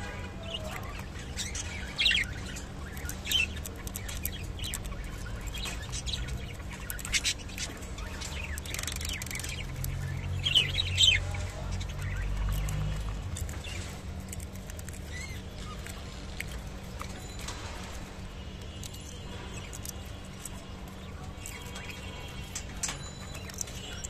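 Budgerigars chirping in short, scattered calls, loudest about two seconds in and again near the middle, over a steady low hum.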